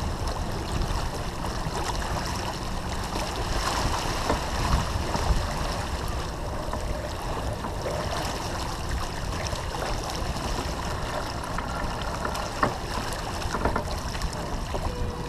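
Water rushing and splashing along the hull of a sailing yacht under way, over a steady low rumble of wind on the microphone.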